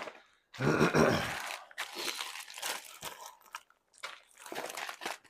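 A candy wrapper being handled, crinkling and crunching in a series of bursts; the loudest comes about a second in.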